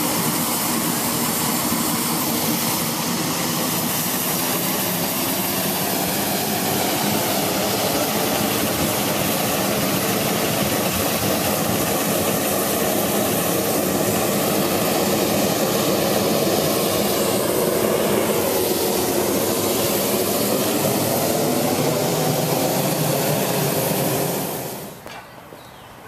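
Balloon inflator fan running steadily as it blows air into the mouth of a small hot-air balloon, then cutting off near the end.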